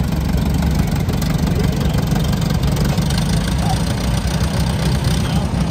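An engine running steadily at idle, a low, even sound with no change in speed.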